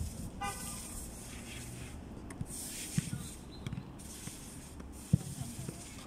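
Footballs being struck in a shooting drill: a sharp thud about three seconds in and a louder one about five seconds in, over a steady hiss. A brief horn-like tone sounds just after the start.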